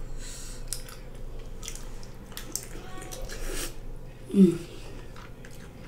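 Close-miked eating sounds: wet clicks, smacks and squishes of buttery lobster tail meat being dipped and chewed. A brief, loud voiced hum from the eater comes about four and a half seconds in.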